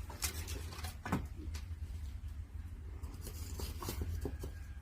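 Wood fire in a traditional wood-fired kiln: a steady low rumble with scattered crackles and pops.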